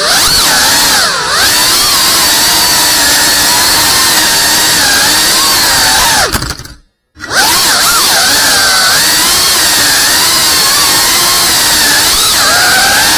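Small FPV drone's brushless motors and propellers whining, the pitch rising and falling with the throttle. The sound cuts out completely for about half a second a little past halfway, then resumes.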